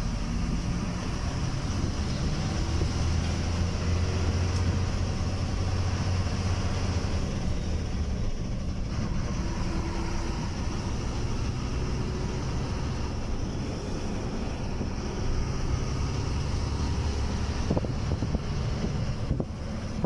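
Bus engine and road noise heard from inside the moving bus: a continuous low drone with rumble and wind noise.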